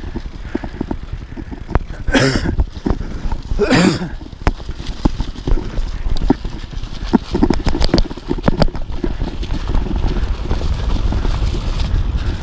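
Mountain bike rolling fast down a leaf-covered dirt trail: the tyres run over dry leaves and dirt, the bike clatters over bumps in many sharp clicks and knocks, and wind rumbles on the microphone. Two short, loud noisy bursts stand out about two and four seconds in.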